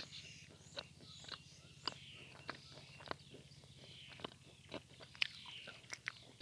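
Vasilpole chalk, moistened, being bitten and chewed close to the microphone: a steady run of sharp crunches, about two a second.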